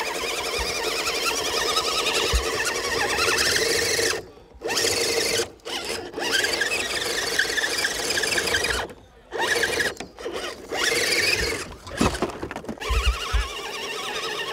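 Electric motor and gearing of a 1/10-scale RC 4x4 trail truck whining, the pitch wavering, stopping and starting several times.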